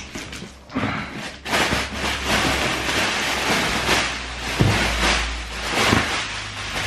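Packaging crinkling and rustling as it is handled and pulled out of a big cardboard box, starting about a second and a half in, with a few dull knocks against the box.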